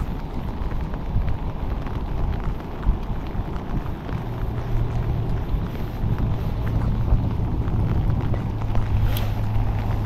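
Wind rumbling on the microphone. A steady low drone joins about four seconds in, and a few faint clicks come near the end.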